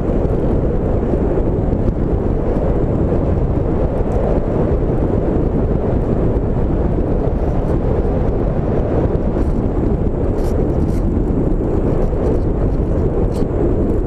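Small model-aircraft engine on a rubber-banded pylon above the sailplane's wing, running steadily at high power right beside the onboard camera, mixed with wind rush over the microphone in flight.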